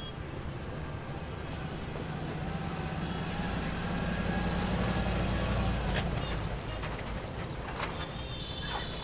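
Engine of an old open-top GAZ-69 jeep running as it drives up and comes to a stop, with a low hum that grows louder to about five seconds in and then dies down. Street traffic sounds behind it, and there is a click about six seconds in.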